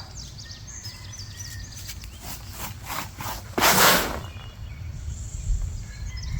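Dry mulch and soil rustling and scraping as they are dug through and pushed aside, with a few short crackles and one louder scrape a little past the middle. Faint bird chirps sound in the background.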